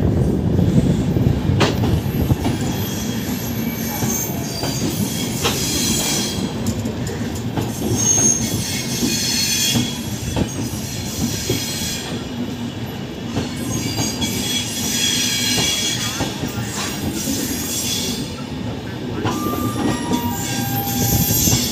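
Passenger train coaches rolling slowly past along a platform as the train pulls out, with a steady rumble, wheels knocking over rail joints, and intermittent high-pitched wheel squeal that comes and goes several times.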